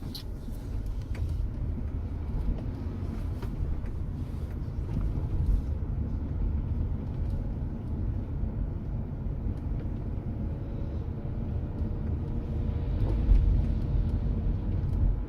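Car being driven on town roads: a steady low rumble of engine and tyre noise, swelling slightly near the end.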